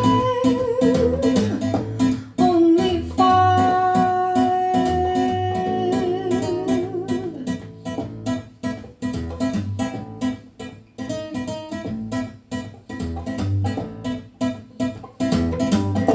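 Music: the instrumental ending of a jazz song, with plucked acoustic guitar over a steady bass pulse and long held melody notes in the first half.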